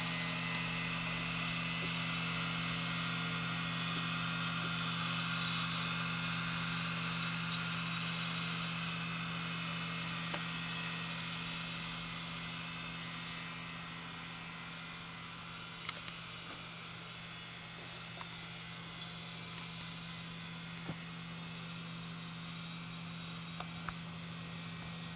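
Several hard disk drives spinning together: a steady low motor hum with several fixed tones and a high-pitched whine from the fast-spinning platters. It gets a little quieter about a third of the way in, and a few faint clicks come through in the second half.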